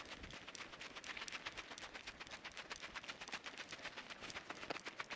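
Faint footsteps crunching on a dry dirt and gravel trail: a quick, even run of small crunches and clicks.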